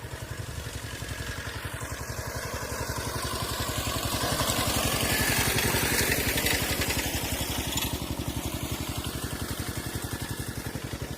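A small engine running steadily with an even, rapid beat. It grows louder a few seconds in, then eases off again.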